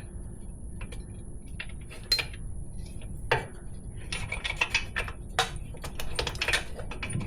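Metal tools clinking and knocking against a motorcycle wheel during a rear tire change. There are sharp clanks about two, three and a half and five and a half seconds in, and a run of quick clicks toward the end.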